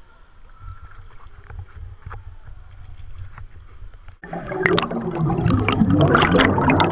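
Water sloshing faintly at the surface, then about four seconds in the sound turns underwater: loud, crackling bubbling of air streaming from a scuba diver's gear around his head.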